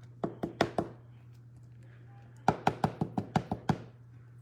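A run of sharp knocks on a hard surface: four in the first second, then about eight in quick succession near the middle.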